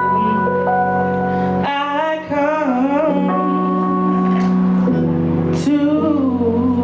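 A singer performing live over held instrumental chords. The voice comes in a little under two seconds in, wavers through a phrase, and returns near the end.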